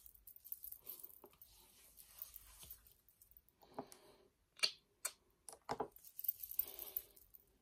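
Hands softly rubbing and patting oil into the skin of the face and neck, a faint rustling. About halfway through come a few short, sharp clicks and knocks, the first the loudest.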